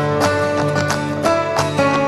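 Background music led by acoustic guitar, with plucked and strummed notes.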